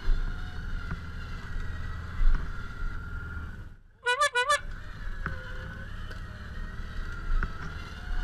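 Side-by-side UTV's engine running with a low rumble and a steady high whine, the machine stuck in deep mud on a taut winch cable. About four seconds in the sound drops out briefly and a short warbling high chirp repeats about four times.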